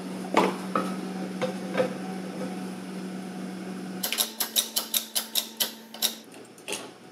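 Fiberglass-and-epoxy hull test piece cracking under a three-point bending load: a few scattered cracks, then a quick run of about a dozen sharp cracks over two seconds as it gives way, over a steady low hum.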